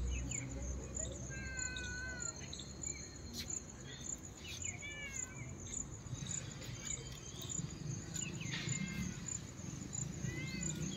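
An insect chirring in steady high-pitched pulses, about three a second, over a low rumble. A bird gives short warbled calls three times: about a second in, near the middle, and near the end.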